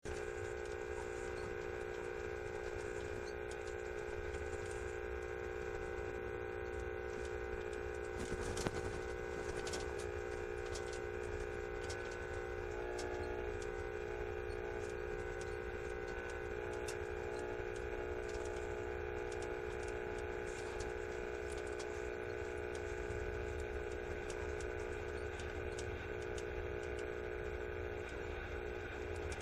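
Steady buzzing hum from a 2-meter amateur radio receiver tuned to an interfering signal near 146.32 MHz. The signal carries unfiltered 120 Hz AC modulation and is believed to come from a grounded-grid amplifier in parasitic oscillation with no drive. A few faint clicks come through around eight to ten seconds in.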